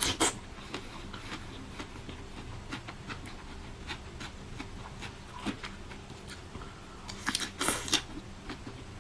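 Close-miked eating sounds: soft chewing and wet mouth clicks while eating fruit, with a louder bite or rustle just after the start and again about three quarters of the way through.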